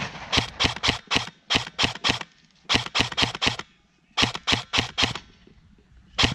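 Airsoft guns firing quick single shots, about four a second, in short strings of three to six with brief pauses between.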